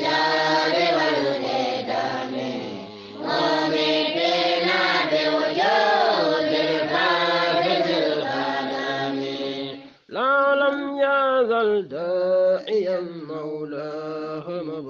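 Group of voices chanting Arabic religious verse in unison, with rising and falling melodic phrases. About ten seconds in, the chant breaks off for a moment and a single clearer voice carries the melody on in short phrases.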